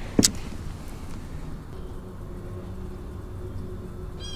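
Quiet open-water background with a low steady hum, broken just after the start by one brief sharp click or knock. Near the end comes a short high chirp.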